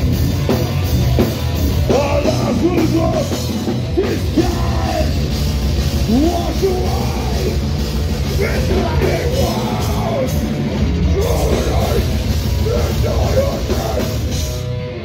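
Metalcore band playing live: distorted guitars, bass guitar and drums under a screamed lead vocal.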